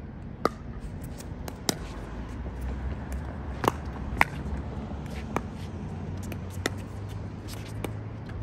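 Pickleball paddles hitting a plastic pickleball back and forth in a rally: a series of sharp pops at uneven spacing, some loud and some faint, the loudest in the first half.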